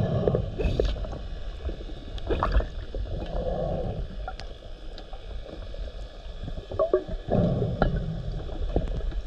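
Scuba diver breathing through a regulator, recorded underwater. A loud bubbling exhalation comes at the start and again about seven seconds in, with a softer inhalation hiss between them, over a steady low rumble and scattered small clicks.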